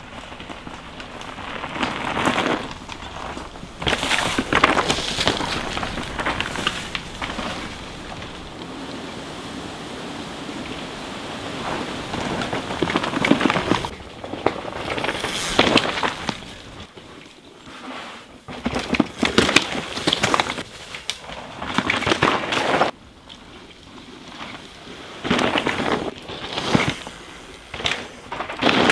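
Mountain bike tyres rolling and skidding over dry dirt, leaves and rocks as the rider passes, coming in several irregular noisy surges.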